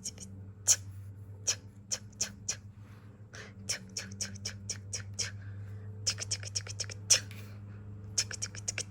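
A run of sharp, irregular clicks and light scratching, several a second with short pauses, over a steady low hum.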